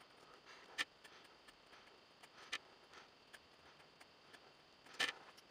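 Graphite pencil on paper while sketching short strokes: faint, scattered ticks as the point touches down and lifts, the clearest about a second in, halfway through and near the end.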